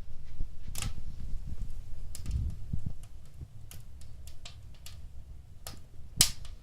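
Wood fire crackling in a fireplace: irregular sharp pops and crackles, one louder pop near the end, over a low rumble.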